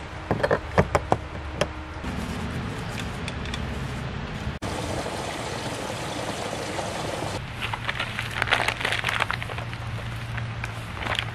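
Clicks and scraping as a brass garden-hose fitting is screwed onto an RV water-fill inlet, then water rushing through the hose and fill line. Near the end, clicks and rustling as a battery is fitted to a cordless circular saw, over a low steady hum.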